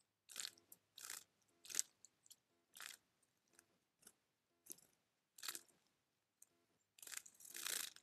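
Eurasian tree sparrow bathing in a shallow bird bath: short bursts of splashing as it flutters its wings and shakes in the water, about one a second, with a longer run of splashing near the end.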